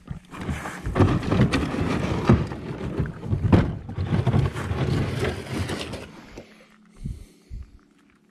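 Red plastic Jackson kayak being pushed off the bank into the water: the hull scrapes and rustles over dry leaves and grass with water sloshing around it, then eases off, followed by a couple of short knocks near the end.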